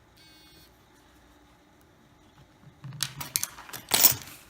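Clicks and knocks of a smartphone being handled and set down on a hard work surface, a cluster starting about three seconds in and loudest about a second later. Near the start there is a brief buzz of about half a second.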